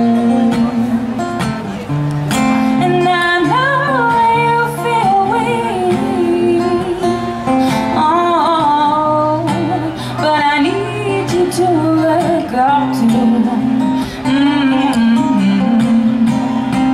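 Live music: an acoustic guitar strummed under a woman's singing voice, with a band behind.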